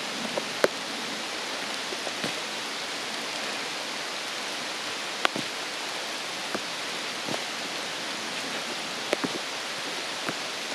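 Steady rain falling in a forest, with a few louder drops striking close by as sharp ticks.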